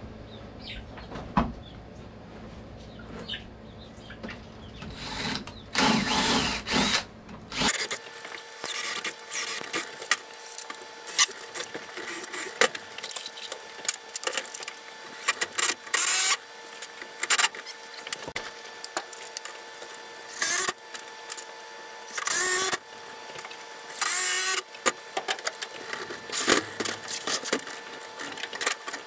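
Cordless drill run in short bursts, driving screws into a wooden door frame, among knocks and clatter of boards and tools being handled.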